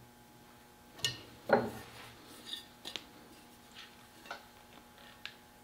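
Metal clicks and knocks from handling a double shotgun's steel barrels and a small screwdriver on a padded bench. There is one louder knock about a second and a half in, then a string of lighter clicks.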